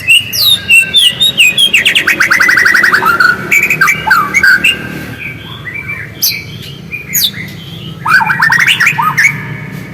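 White-rumped shama (murai batu) singing loudly in a varied run of whistled notes and sweeping glides, with a fast trill of rapidly repeated notes about two seconds in.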